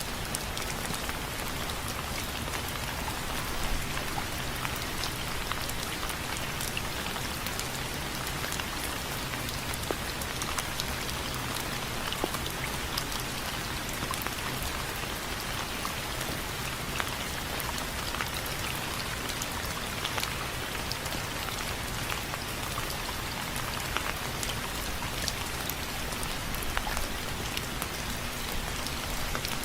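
Steady rain pattering on window frames, a constant hiss of rainfall with many small scattered drop ticks.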